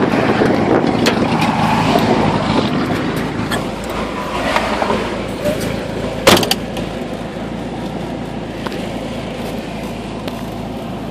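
Wind buffeting the microphone dies away over the first few seconds as the camera comes inside a car, leaving a low, steady hum of the car. A few small handling clicks, and one sharp knock about six seconds in.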